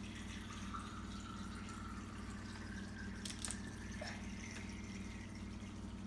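Toy sink's plastic faucet running, with water trickling and dripping into a small plastic cup over the steady hum of the sink's small water pump. There is a light click about three seconds in.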